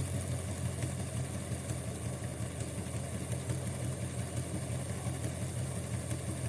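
Small DC electric motor with a flywheel running steadily in a model railway Doodlebug railcar, driving its gears with a steady hum. The gears run smoothly without clunking, a sign that the broken gears repaired with CA glue and bicarb soda are holding.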